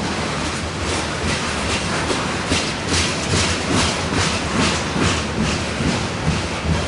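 Covered hopper cars of a heavy freight grain train rolling past, their wheels clacking over rail joints in a steady rhythm of about two to three clicks a second over a constant rolling rumble.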